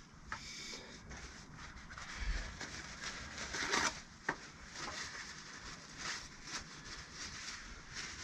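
Motorcycle brake pads being rubbed clean of brake dust by hand: a run of irregular soft rubbing strokes, with a louder stroke and a sharp click about four seconds in.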